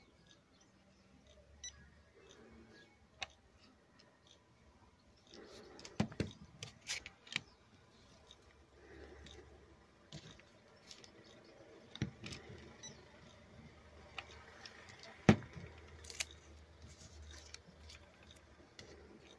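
Faint handling noises: scattered clicks and taps of a hand-held coating thickness gauge and its plastic calibration foils being handled on a work surface, with a small cluster about six seconds in and the sharpest click about fifteen seconds in.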